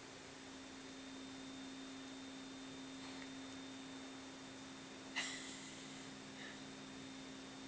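A faint, steady low hum with a thin high whine above it, and one sharp click about five seconds in.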